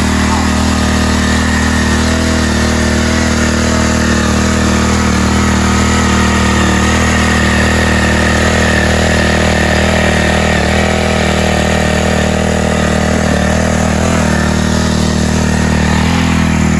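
Kubota TMS200 mini cultivator's small engine running steadily at full throttle as its tines churn the soil.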